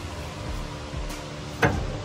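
Background music with a steady beat, and one sharp tap near the end.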